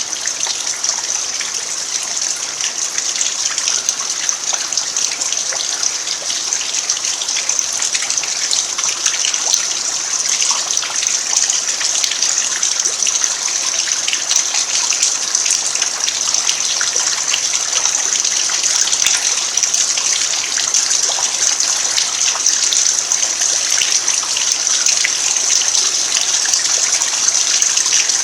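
Steady rain falling on a dirt yard: an even hiss of countless drops, with single drops ticking through it.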